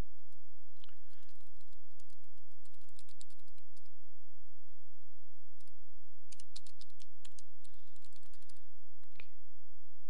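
Typing on a computer keyboard: two runs of quick keystrokes, one about two seconds in and another from about six seconds, over a steady low hum.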